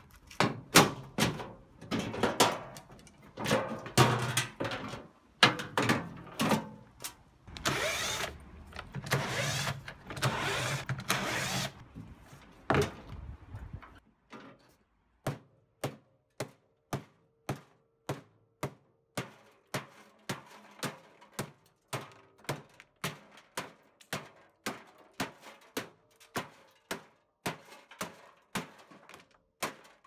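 Clattering and scraping as a washing machine's steel casing panel is prised and pulled off, with a few longer scraping stretches. About halfway through this gives way to steady hammer taps on the machine, about two a second.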